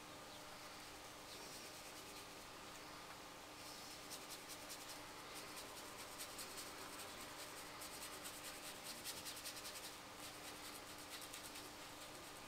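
A paintbrush scrubbing acrylic paint on in quick, short strokes: a faint, rapid scratching that starts about four seconds in, eases briefly near ten seconds and picks up again, over a low steady hum.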